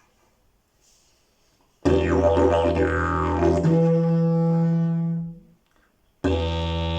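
Fiberglass-and-dried-leaf slide didgeridoo being played. A low drone starts about two seconds in, with sweeping overtones, jumps to a higher note midway, breaks off briefly, then starts again near the end.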